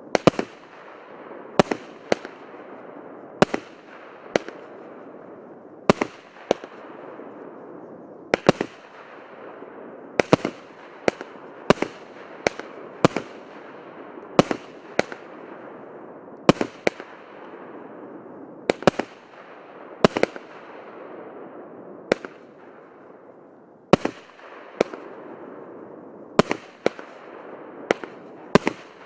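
A 25-shot, 1-inch (25 mm) consumer firework cake firing shot after shot. There is a sharp bang every second or so, sometimes two close together, and a steady crackle of the bursting effects in between.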